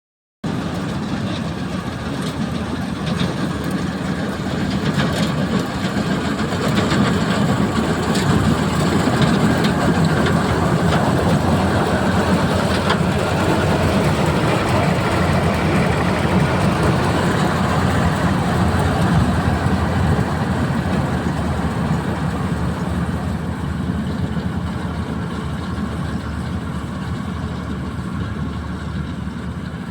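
AS 930 combine harvester running, a steady heavy engine hum with machinery noise over it. It grows louder over the first several seconds and eases off slowly toward the end.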